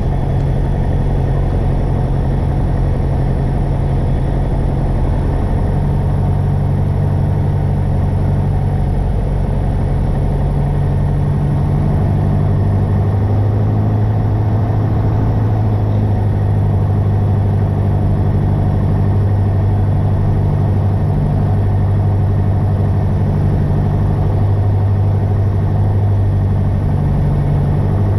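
Piper Warrior II's four-cylinder Lycoming O-320 engine and propeller droning steadily, heard from inside the cockpit on final approach. The tone shifts a little a few times and gets slightly louder about twelve seconds in.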